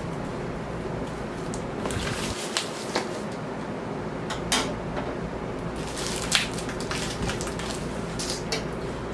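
Cardboard record mailer being handled and pulled open: scattered rustles, scrapes and a few sharp clicks, over a steady low background hum.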